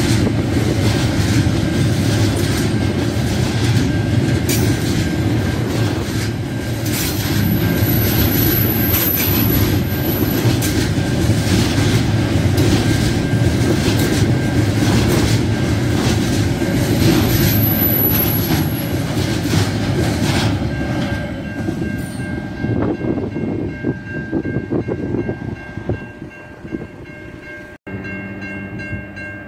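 Freight train wagons rolling past a level crossing: a heavy rumble with wheels clacking over rail joints, fading away over the last several seconds as the end of the train goes by. Level crossing alarm bells ring on steadily, heard plainly once the rumble dies down.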